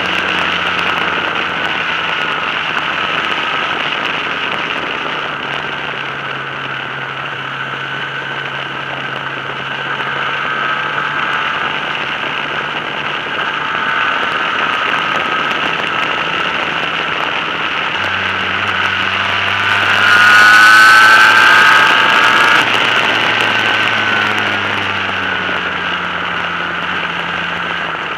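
Yamaha RD350 YPVS two-stroke twin running as the bike is ridden, under a steady rush of wind and road noise on the bike-mounted microphone. The engine note steps with gear and speed and rises in a louder burst of acceleration about twenty seconds in.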